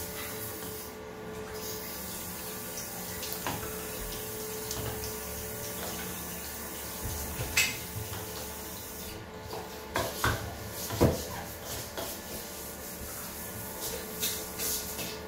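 Bathroom sink tap running while hands are rinsed under it, then a metal scouring pad rubbing against the chrome tap, with a few sharp knocks about two-thirds of the way in.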